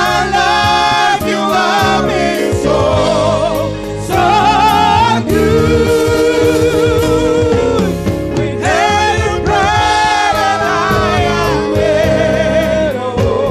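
Gospel-style song: singing voices over a band with a steady beat.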